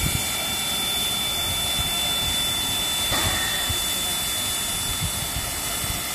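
Steady hiss of steam from an NZR Ab-class 4-6-2 steam locomotive standing in steam, with a thin high tone over it and an irregular low rumble underneath.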